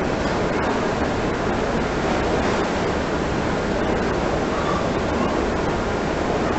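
Steady rush of water pouring from the outlet of a spiral water slide into the pool.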